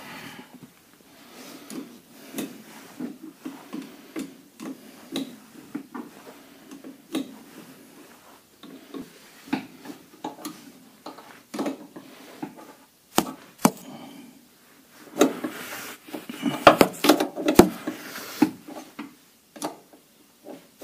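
Hand tools working the mounting bolt of a rear air shock absorber as it is tightened: irregular metal clicks, clinks and knocks, coming thickest about three-quarters of the way through.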